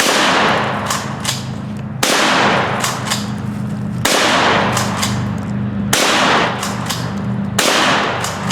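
Five shotgun blasts about two seconds apart, each sudden and trailing off for a second or more, over a steady low hum.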